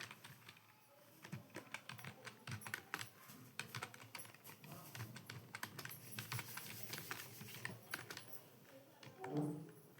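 Typing on a computer keyboard: a quick, irregular run of soft key clicks. About nine seconds in there is a short, louder voice-like sound.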